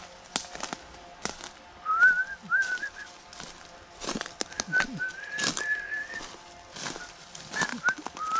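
A person whistling a slow tune: single clear notes that slide up and hold, in short phrases. Footsteps crunch and snap over leaves and twigs underneath.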